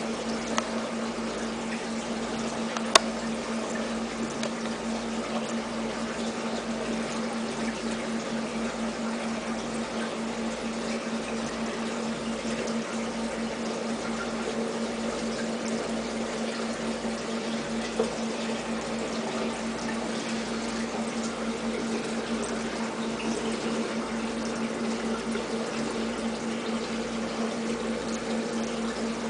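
A small water pump running steadily with a low hum and water trickling. A sharp click sounds about three seconds in, with fainter ones near the start and midway.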